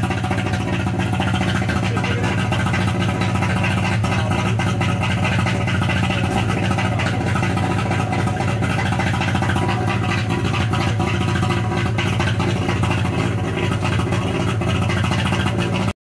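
Saab 93's three-cylinder two-stroke engine running steadily at a constant, low engine speed, without revving.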